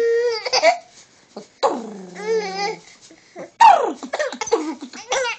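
A baby laughing and squealing in three high-pitched bursts with short pauses between them.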